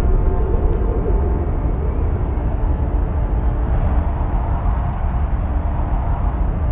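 Loud, steady low rumble with several held tones over it, without speech.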